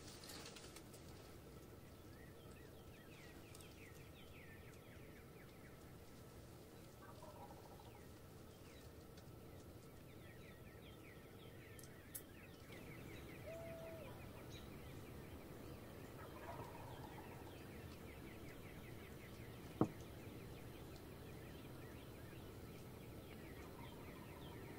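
Wild turkey gobblers gobbling faintly and far off, about three times, while small birds chirp faintly throughout. A single sharp click a few seconds before the end is the loudest sound.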